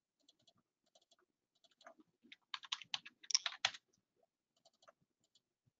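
Typing on a computer keyboard, faint: a quick run of keystrokes about two and a half seconds in, with a few scattered faint clicks before and after.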